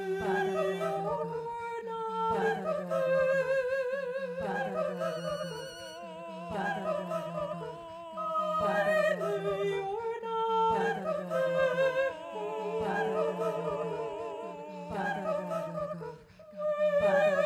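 A woman's wordless singing, looped and layered electronically into held, overlapping notes over a steady low drone. The upper notes waver in pitch and shift every second or two.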